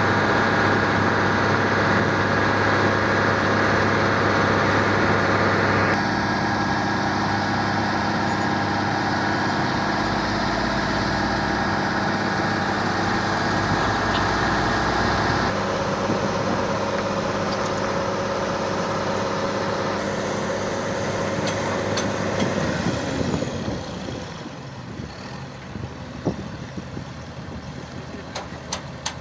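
Road roller's engine running steadily, its sound shifting abruptly several times. It drops quieter about three-quarters of the way through, with a few sharp knocks near the end.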